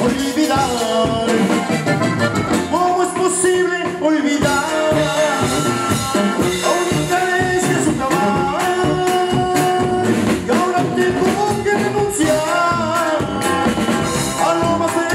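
A live band of accordion, tuba, guitar and drums playing Mexican dance music, loud and without a break.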